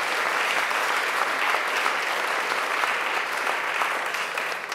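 Audience applauding, a steady patter of many hands clapping that begins to die away near the end.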